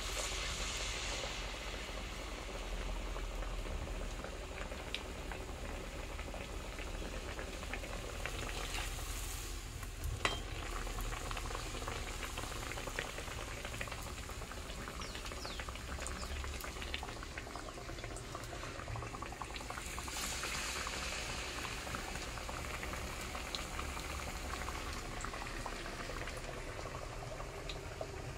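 Urad dal batter deep-frying in hot oil in an iron kadhai: a steady sizzle with many small crackling pops, and a single sharp click about ten seconds in.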